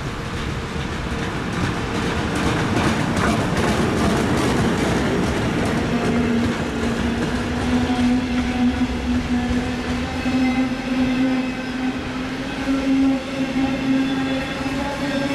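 Train running at the platform. Rail and wheel noise with a run of clicking builds over the first few seconds, then a strong steady motor whine takes over and rises slowly in pitch.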